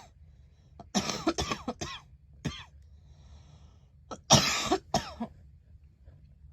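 A girl coughing: a quick run of short coughs about a second in, then a louder, longer cough about four seconds in, trailing off in a couple of small ones.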